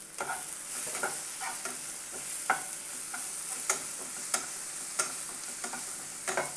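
Onion, capsicum and tomato masala sizzling in a pan over a high gas flame, with a steady hiss. A spatula stirring it scrapes and taps the pan at irregular moments.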